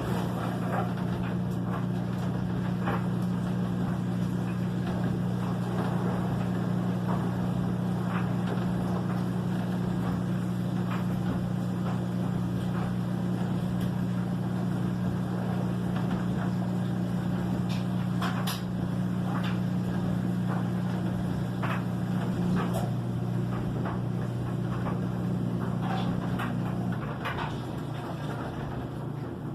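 LG front-load washing machine running with a steady low hum that cuts off near the end, with scattered light clicks.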